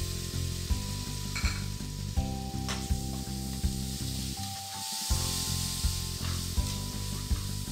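Chopped tomatoes sizzling as they fry in hot oil and masala in a metal kadai, with the scrape and click of a perforated metal slotted spoon stirring them against the pan. Light background music plays under it.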